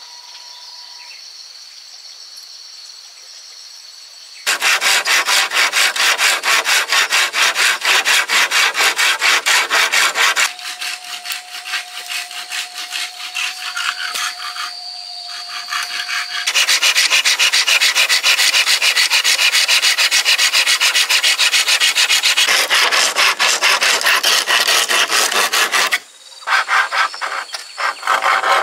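A hand tool working bamboo in rapid, even back-and-forth strokes, sawing or scraping it. It starts about four seconds in, drops away around ten seconds in, and comes back louder around sixteen seconds in, with a brief break near the end.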